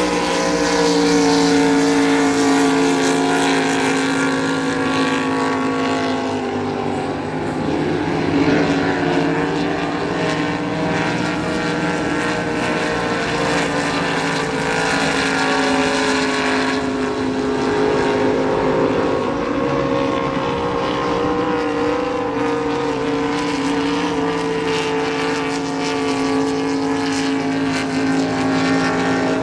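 Supercharged (blown) race-boat engines running flat out as several boats race past, a continuous engine note whose pitch sags and recovers a couple of times as the boats pass and turn.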